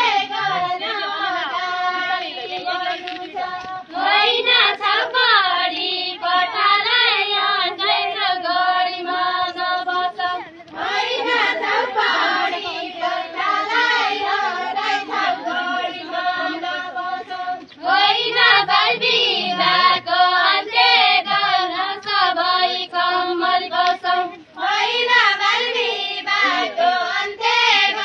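A group of women and girls singing a Deuda folk song together, in long phrases with a brief break about every seven seconds.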